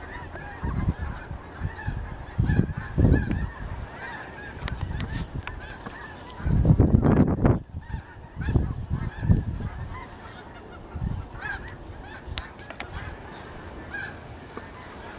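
A large flock of snow geese calling in flight overhead, a continuous chorus of many overlapping honks. Several low rumbling bursts come and go over it, the loudest about seven seconds in.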